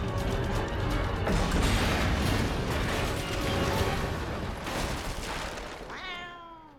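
Film soundtrack music over a long crashing, clattering rumble of metal warehouse shelving and debris coming down. Near the end a cat's meow glides downward in pitch.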